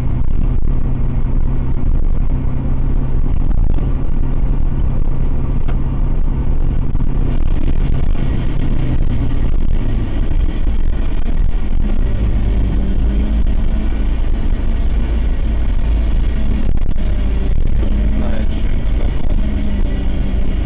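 Car with its engine running and an odd steady hum that the owner puts down to the clutch. The hum's pitch steps up about halfway through.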